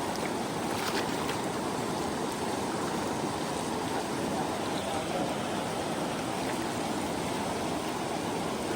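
The Tamakoshi River's water rushing steadily, with a few faint ticks about a second in.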